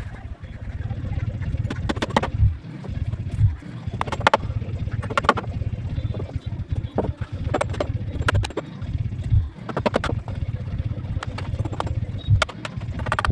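Steady low rumble with many sharp, irregular knocks and taps: construction-site work on formwork.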